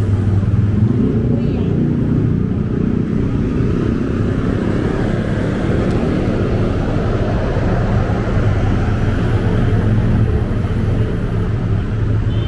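Steady low hum of vehicle engines and traffic along a city street, even and unbroken throughout.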